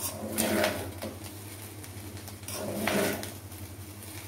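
A spatula scraping and turning cooked fried rice in a pan, in two drawn-out strokes, one about half a second in and one near three seconds in, over a steady low hum.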